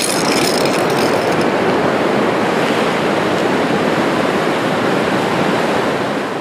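Whitewater rapid on the Lochsa River rushing steadily over boulders, a loud even roar of water, easing slightly near the end.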